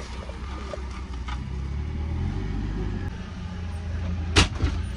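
Forklift engine running steadily as it brings a pallet up to the van's rear doors, with one sharp knock near the end.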